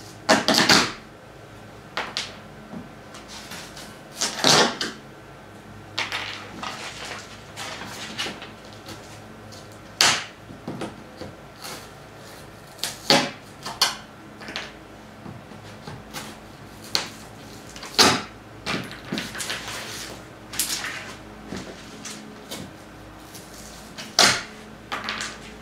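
Irregular sharp clicks, snaps and scrapes from a hand tool working fasteners loose from the top of a cardboard shipping box, a dozen or so short bursts spread unevenly, the loudest near the start and about 4, 10, 18 and 24 seconds in.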